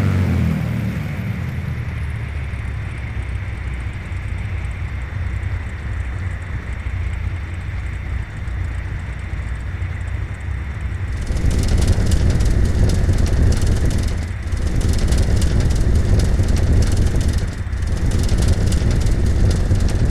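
Cessna T337G Skymaster's two piston engines running steadily at low power, a deep hum. About eleven seconds in, a louder, rougher noise comes in and dips briefly twice.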